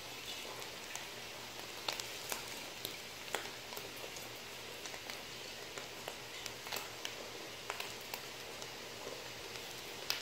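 Pot of water at a boil with soaked basmati rice just added, bubbling steadily with scattered small pops.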